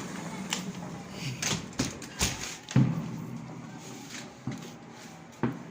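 New Year fireworks going off: about seven sharp bangs at irregular intervals, the loudest a little under three seconds in.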